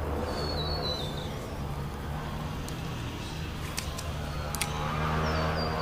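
Steady low electric hum of a Minn Kota trolling motor running. A bird calls twice, each time a short run of high notes stepping downward, once near the start and once near the end, and a few sharp clicks fall midway.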